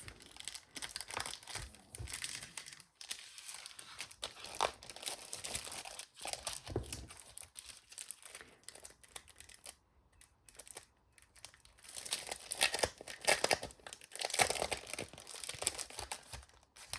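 Crinkly packaging around a pack of rub-on transfer sheets being handled and worked open, with irregular rustling and tearing sounds. It is quieter for a few seconds in the middle and busiest near the end.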